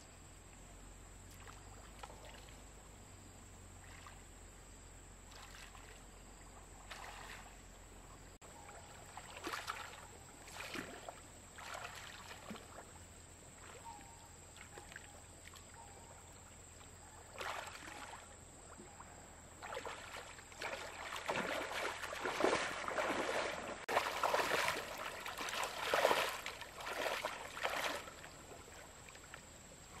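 Water splashing and sloshing in irregular bursts, sparse at first and then busier and louder from about twenty seconds in.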